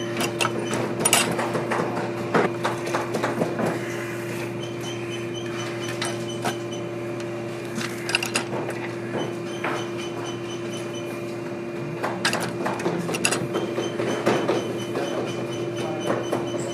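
Clicks and metal clacks from a hand-operated bench press setting brass eyelets into a boot's leather upper, coming in clusters with short pauses between, over a steady hum.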